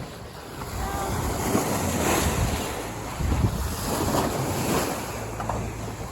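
Wind buffeting the microphone over the rush of sea water past a sailing yacht under way, swelling and easing every second or so.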